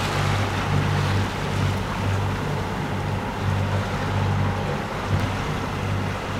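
Sailing yacht under way through choppy water: a steady rush of water and wind along the hull, over a low rumble that swells and fades about once a second.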